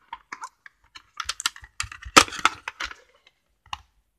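A VHS cassette being taken out of its box and handled: an irregular string of plastic clicks and rattles, loudest about two seconds in.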